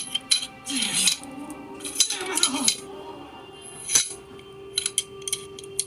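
Metal clicks and clinks of Canik TP9SFX pistol parts being handled during disassembly and assembly, a dozen or so irregular sharp strikes with a bright ring, over a steady background tone.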